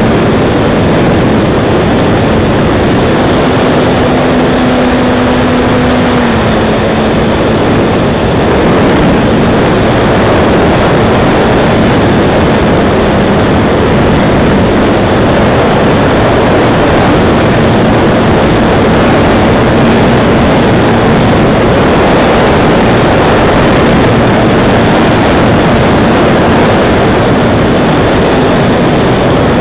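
Loud, steady rush of propeller and wind noise heard from a camera mounted on a FunCub RC model plane in flight. Under it a faint hum from the plane's electric motor steps up in pitch about three seconds in and drops back about six seconds in.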